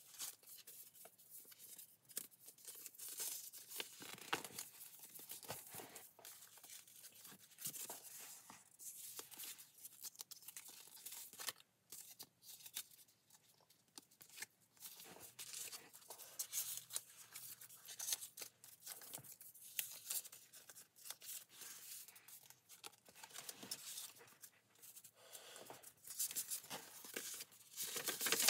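Paper rustling and crinkling: tags and inserts slid in and out of envelope pockets and pages of a handmade paper journal turned, in short, uneven scrapes and crinkles.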